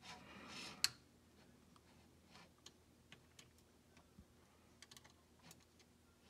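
Small plastic parts of a Microsoft Surface Precision Mouse clicking and tapping faintly as the mouse's top shell and button parts are fitted back together by hand. There is a short rustle at the start, one sharper click about a second in, then scattered light ticks.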